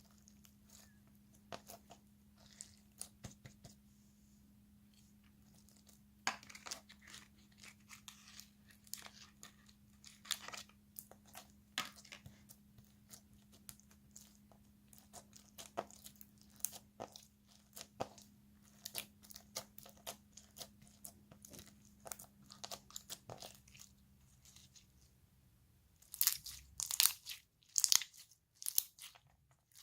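Stationery-store slime being squeezed and pressed by hand, a run of irregular sticky crackles and pops, with a louder, denser flurry near the end.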